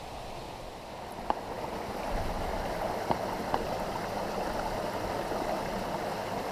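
Mountain stream water running over rocks, getting louder about two seconds in, with three short clicks.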